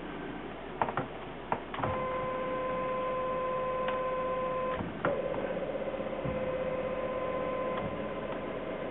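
Stepper motors of a TAIG CNC mill driving the table. A few clicks about a second in, then a steady whine with an overtone for about three seconds. A click near five seconds leads into a slightly different, wavering whine that runs on.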